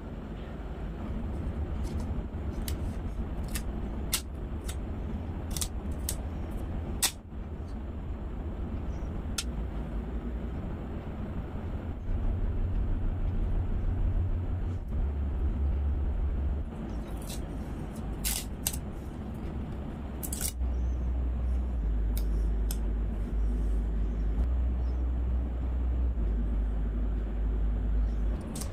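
A low, steady rumble with scattered light clicks and taps from tempered-glass screen protectors being handled and pressed onto a GoPro Hero 10's screens and lens cover.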